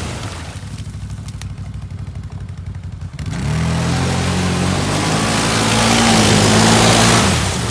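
CFMoto X8 H.O. quad bike's V-twin engine running low, then revving up about three seconds in and held at high revs as the wheels churn through deep mud. It eases off near the end.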